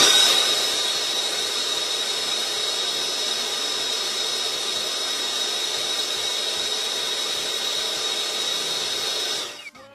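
Milwaukee Fuel cordless blower switched on and running steadily at high speed with a high whine, its nozzle pushed into a dryer vent opening to blow the vent duct clear. It cuts off shortly before the end.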